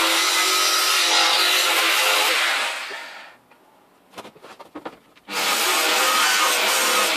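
Electric jigsaw cutting a hole in a sheet-metal panel. The saw stops about three seconds in, there are a few knocks and clicks as the saw and panel are moved, and it starts cutting again about two seconds later.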